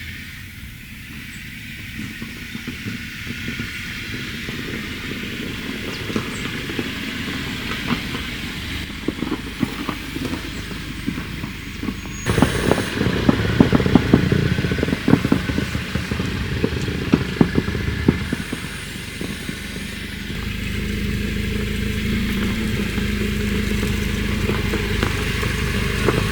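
A car driving, with steady road and engine noise. From about halfway through, a few seconds of dense rattling and crackling clicks form the loudest part, followed by a steadier low drone.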